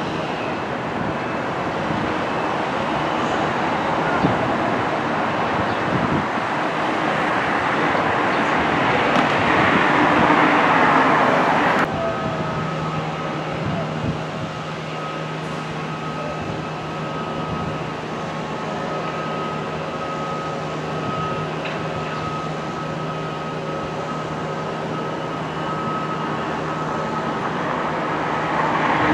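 Outdoor crowd ambience: a dense hiss of mixed voices and movement, cutting off abruptly about halfway through to a quieter background with a steady low mechanical hum and a faint higher whine.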